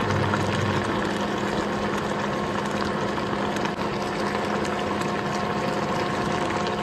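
Vegetable stew boiling and bubbling in a pan on an induction cooktop, over the cooktop's steady hum.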